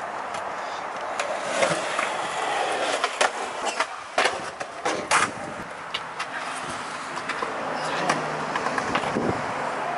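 Skateboard wheels rolling on a concrete skatepark surface, with several sharp clacks from the board and trucks scattered through the run.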